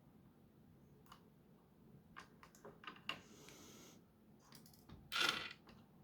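Faint handling of the small plastic parts of a disassembled Nerf Gatling blaster: scattered light clicks and taps, a brief rustle a little after three seconds, and a louder short scrape about five seconds in.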